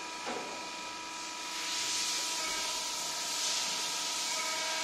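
Hydraulic CNC press brake running during a bend: a steady machine hum with fixed tones, joined about a second and a half in by a loud, even hiss as the ram works the sheet.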